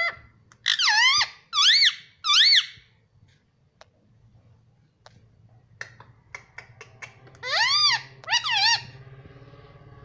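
Indian ringneck parakeet calling: three loud calls in quick succession, each rising then falling in pitch, starting about a second in. A few sharp clicks follow, then two more calls, then a quieter, lower sound near the end.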